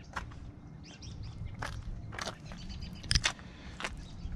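Footsteps scuffing and tapping on asphalt at an uneven pace as a handheld camera is carried along, over a low rumble of wind or handling noise.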